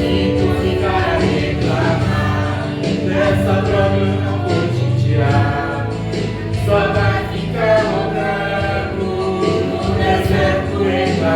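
Gospel song sung by a man-and-woman duo over steady instrumental backing.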